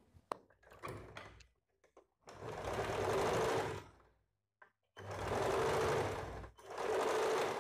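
Electric sewing machine stitching in three bursts of a second or so each, with short pauses between, while a neck binding strip is sewn onto a blouse.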